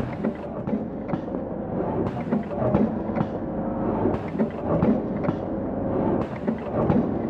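Single-row four-side sealing liquid packing machine running as it fills and seals ketchup sachets: a steady mechanical clatter with repeated clicks.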